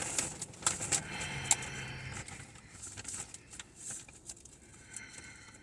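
Faint rustling and small clicks of paper fast-food packaging being handled.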